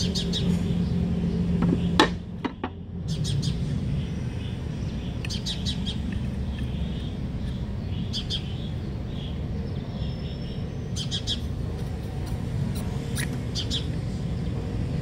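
Small birds chirping in quick clusters of short high notes every few seconds, over a steady low rumble. A single sharp click about two seconds in.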